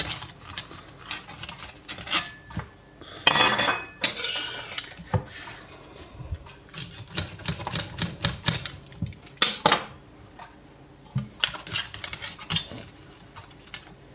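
Cutlery and dishes clinking and scraping, a run of short taps and knocks with a longer scrape about three seconds in, as the baked pizza is cut and served for tasting.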